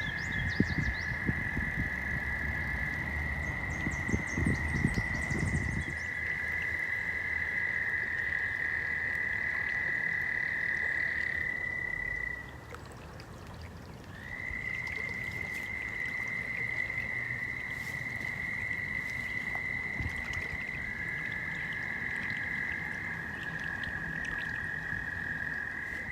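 A steady, high-pitched chorus of calling animals: two overlapping droning tones that carry on unbroken, drop out for about a second and a half midway, then resume. Low rumbling noise underlies the first several seconds.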